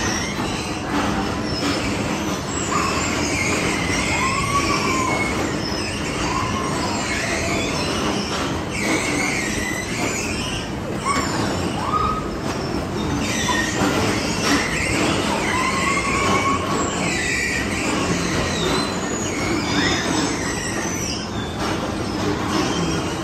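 Steady din of tube bumper cars driving round a bumper car floor, with short high squeals rising and falling over it every second or two.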